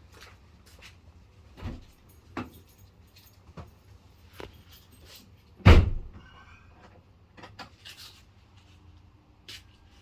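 Scattered light clicks and knocks, with one heavy thump a little past halfway, like a vehicle door or panel being shut. No engine cranking or running is heard.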